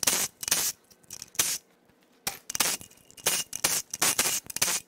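Ratchet clicking in short strokes, about two or three a second with a brief pause near the middle, as the 13 mm bolts holding the upper oil pan of a 3.6L Pentastar V6 are loosened.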